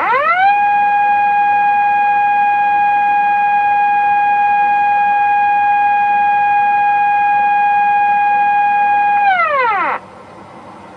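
Municipal disaster-prevention radio siren sounding from outdoor loudspeakers: one long blast that rises quickly to a steady pitch, holds for about nine seconds, then falls away and stops. It is the siren signal that goes with an evacuation advisory or evacuation order, sounded here as a training broadcast.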